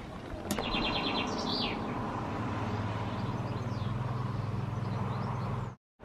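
A small bird chirping outdoors: a quick run of short high notes about half a second in, then a brief call, over a steady low hum.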